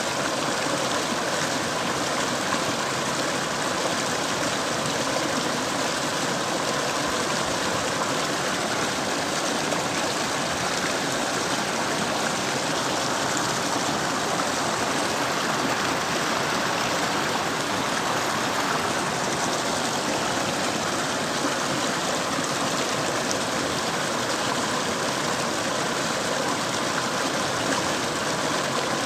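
Mountain river flowing, a steady, unbroken rush of water.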